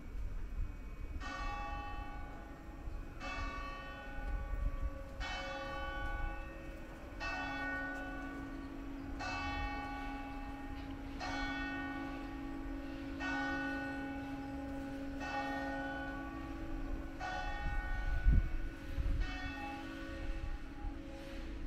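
A single church bell tolling slowly, about one stroke every two seconds, ten strokes in all, each ringing on into the next. A short low thump near the end.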